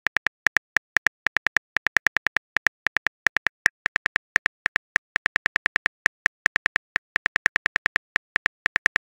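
Smartphone on-screen keyboard tap clicks, one per typed letter: a rapid run of short, identical clicks at about six a second, slightly uneven in spacing.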